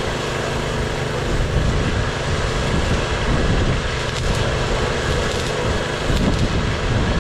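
A motor or engine running steadily with a constant hum, surging briefly a few times.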